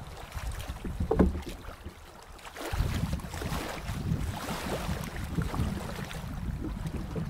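Canoe paddle dipping and splashing in shallow water, with wind buffeting the microphone from a few seconds in. A single knock sounds about a second in.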